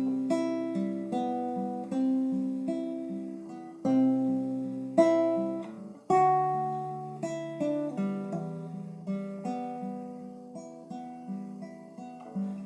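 Acoustic guitar playing a fingerpicked introduction: plucked notes over a repeating bass, changing chord about four and six seconds in.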